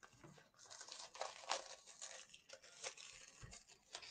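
Plastic shrink-wrap being torn and pulled off a packaged game pack: a faint, irregular run of crinkling, crackling tears.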